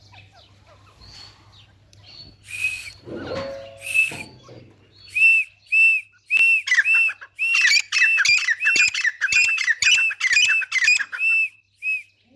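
Grey francolin calling: a few loud ringing notes, then a run of repeated ringing notes that comes faster and faster. About halfway through, a second series of lower, falling notes overlaps it, and the calling stops shortly before the end.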